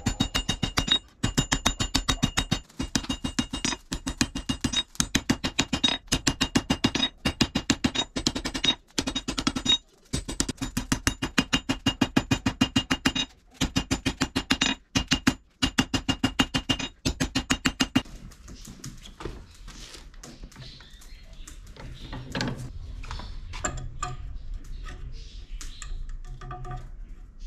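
Hand hammer striking red-hot car leaf spring steel on an anvil in rapid runs of several blows a second with brief pauses, each blow ringing the anvil. About two-thirds of the way through the hammering stops, leaving quieter light clinks and knocks as the steel is handled at a bench vise.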